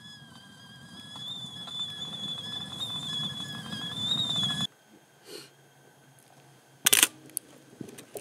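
A kettle in a campfire whistles with a steady high tone over the fire's crackle, swelling and rising slightly before cutting off suddenly about four and a half seconds in. After a short quiet, a camera shutter clicks sharply once about seven seconds in, with a couple of faint clicks after it.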